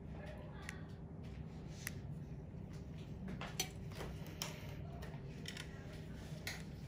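Scattered sharp clicks of small extraction instruments being handled, about six in all, over a steady low hum.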